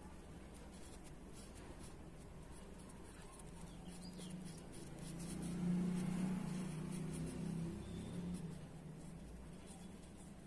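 Red felt-tip marker scratching on paper in short strokes as letters are coloured in. Around the middle a low drone swells and then fades.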